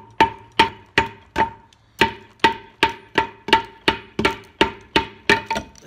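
Rubber mallet blows on a 1953 Dodge three-speed transmission, driving the main input shaft out of the case. Steady hammering at about two to three blows a second, each with a short metallic ring, with one brief pause about two seconds in.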